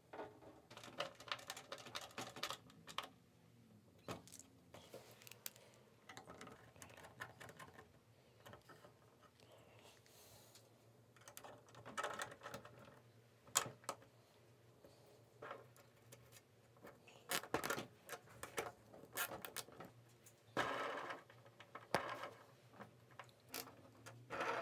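Handling noise of small hard parts: scattered clicks, taps and light rattles, with a few denser clattering spells, as a wheel is fitted to a landing-gear strut with a hex key and the gear legs are pushed into a 3D-printed plastic wing.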